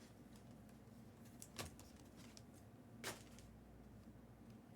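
Near silence with two faint short clicks about a second and a half apart: trading cards being handled as a stack is gone through.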